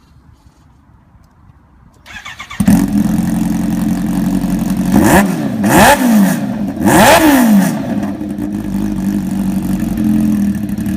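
Kawasaki H2's supercharged inline-four being started: a brief crank about two seconds in, then it catches and idles loudly. It is blipped twice, revs rising and falling sharply each time, and cuts off at the very end.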